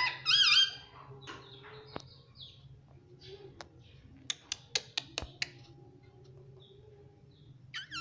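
Indian ringneck parakeet vocalising, with a short high call of bending pitch at the start and another beginning near the end. Between them it is quieter, with a few sharp clicks or taps around the middle.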